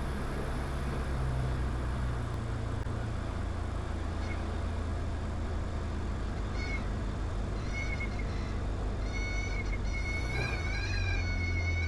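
Diamond DA20 light aircraft's engine running steadily, heard from the cabin. From about halfway through, the stall warning horn sounds: first in short wavering blips, then held almost continuously, as the aircraft nears the stall in the landing flare.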